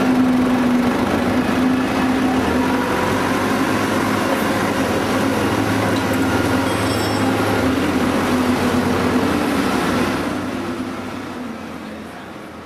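Factory machinery running with a steady mechanical noise and a low hum, fading out over the last two to three seconds.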